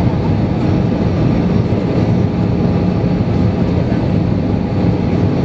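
Steady cabin noise of an Airbus A320 airliner in flight, heard from a window seat. It is a low, even drone of the jet engines and rushing air, with a few faint steady hums beneath it.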